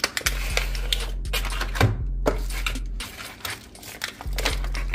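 Unboxing handling noise: a cardboard box flap opened and a clear plastic wrapper handled, giving a run of light clicks, scrapes and crinkles.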